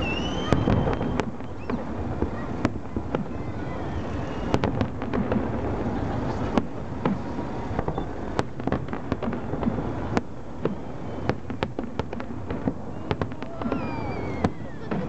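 Fireworks display: aerial shells bursting in an irregular run of sharp bangs and crackles over a continuous low rumble.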